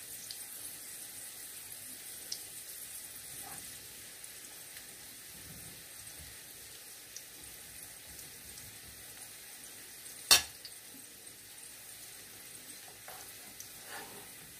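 Vegetable and shrimp fritter batter sizzling in hot oil in a frying pan, a steady hiss, with one sharp click about ten seconds in.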